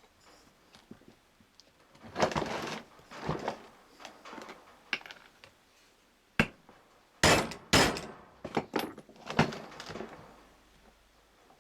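Irregular metallic clinks, knocks and short scrapes of hand work on a driveshaft universal joint being assembled, with two sharp knocks a little after seven seconds in.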